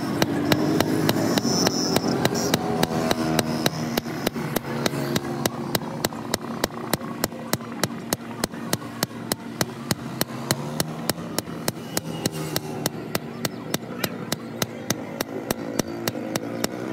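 Blacksmith's hand hammer striking a red-hot sickle blade on a steel block anvil while forging it, a steady rhythm of about four blows a second.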